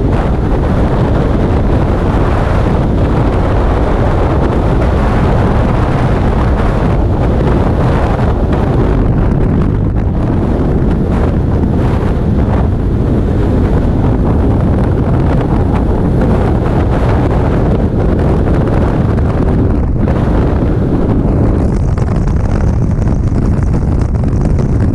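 Steady, loud wind rush of skydiving freefall buffeting the camera's microphone.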